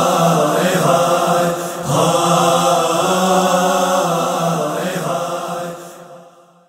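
Chanted vocal backing of an Urdu noha: voices holding a steady drone-like chant, fading out to silence over the last second.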